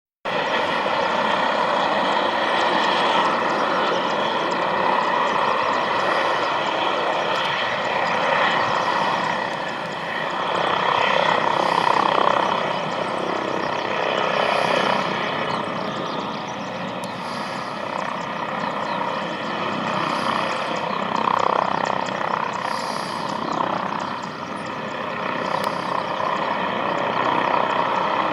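Aircraft engines running steadily, a loud rushing noise with a steady multi-tone whine that swells slightly now and then.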